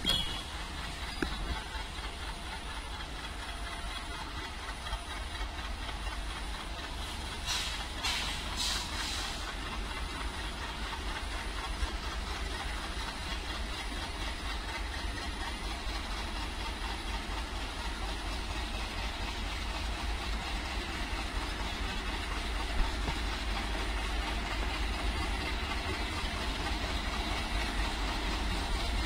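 Twin WDM3D diesel-electric locomotives running with a steady low engine rumble that slowly grows louder as the coal goods train starts away. A few short hisses come about eight seconds in.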